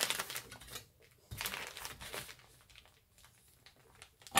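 Paper rustling as a stack of folded pages is handled and shifted on a cutting mat, in two short spells, followed by a sharp tap near the end.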